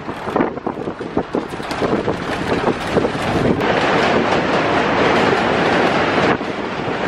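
Ride noise on the open upper deck of a moving bus: a loud, rushing rumble of wind and traffic with scattered knocks. It swells over a few seconds and drops off suddenly near the end.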